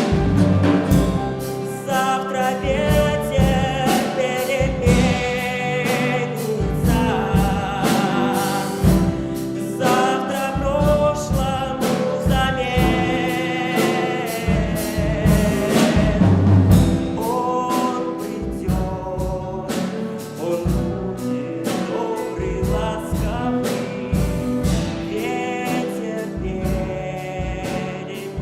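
A singer performing a song live with piano, drum kit and guitar accompaniment, the voice held in long notes with vibrato over a steady drum beat.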